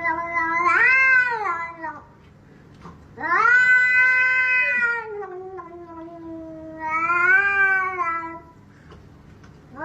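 A cat yowling in long, drawn-out wails that waver up and down in pitch, three in a row, the middle one lasting about five seconds.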